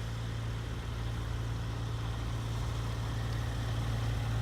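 Viking 110 aircraft engine on a Zenith CH-650 running steadily at low power through its new high-performance muffler, a fairly quiet even drone that grows slightly louder toward the end.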